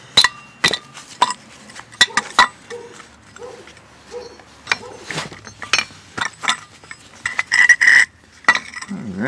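Steel variable speed pulley and bearing cup from a lawn tractor clinking and knocking as they are handled and fitted together: an irregular string of sharp metal clinks, some ringing briefly, the loudest cluster near the end.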